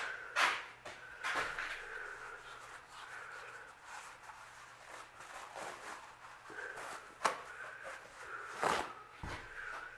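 A few scattered knocks and clatters of tools and parts being handled on a workbench, four separate hits with the last one the longest, over a faint steady background tone.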